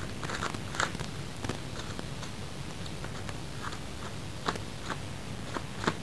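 Faint scattered clicks and ticks, about half a dozen, over a low steady hum.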